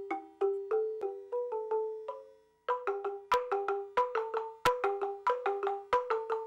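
Balafon struck with mallets, playing a fast repeating pattern on a few wooden keys at three to four notes a second. It stops for a moment about two and a half seconds in, then starts again louder, with sharp wooden clacks among the notes.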